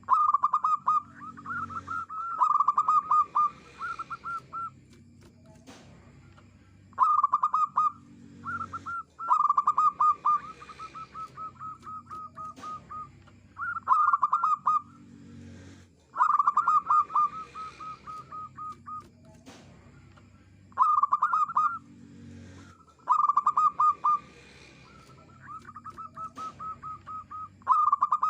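Zebra dove singing: repeated bouts of rapid staccato cooing notes, each bout lasting one to three seconds, coming again every few seconds.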